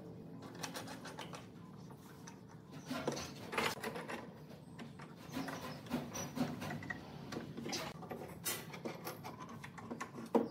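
Metal screw clamps being fitted onto a wooden chair seat and wound tight: scattered light clicks and knocks of metal on wood, with some rubbing and scraping, and a sharper click near the end.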